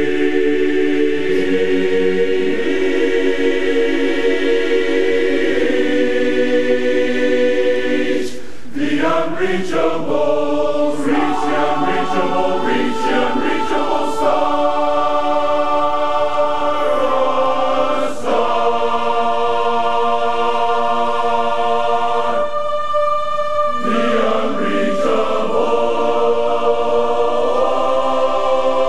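A large men's barbershop chorus singing a cappella in close harmony, holding long chords with short breaks between phrases.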